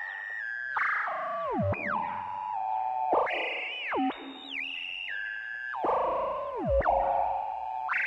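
Electronic synthesizer music: held tones broken by repeated swooping pitch slides, mostly steep falling glides every second or two.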